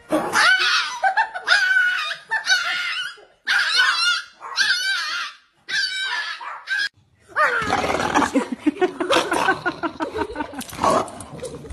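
Dogs vocalizing. A small white fluffy dog gives about six short, high, wavering cries, one after another. Then a bulldog makes a lower, rapidly pulsing, drawn-out noise to near the end.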